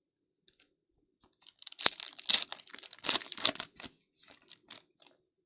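A foil trading-card pack wrapper being torn open and crinkled, a dense crackling rustle starting about a second in and dying away near the end.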